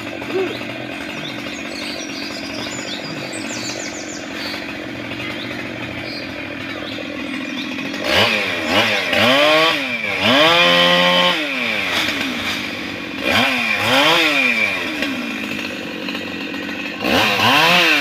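Petrol chainsaw idling steadily, then revved up and back down several times in short bursts over the second half.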